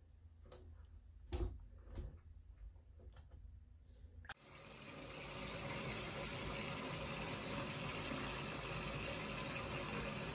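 A few light knocks, then about four seconds in, water starts running from a bathtub spout into the tub, a steady even rush that swells slightly and holds.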